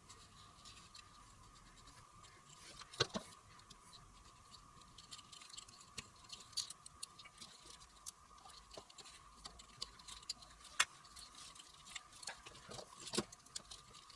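Faint scattered clicks, taps and scratches of a Pozidriv screwdriver turning out small screws and the nuts being handled, with a few sharper taps about 3, 11 and 13 seconds in. A faint steady whine runs underneath.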